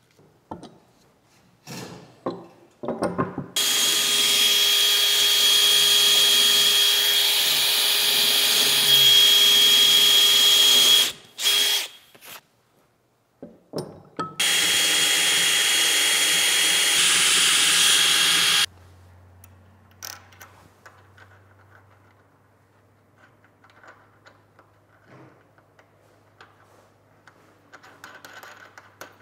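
Electric drill running in two long runs, about seven and then four seconds, boring through the wooden bench top for the vise's mounting bolts. Afterwards faint clicks of bolts, nuts and washers being handled.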